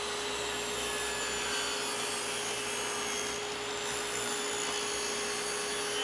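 Table saw running steadily with a constant whine while a board on a jointer sled is fed through the blade, ripping a straight edge.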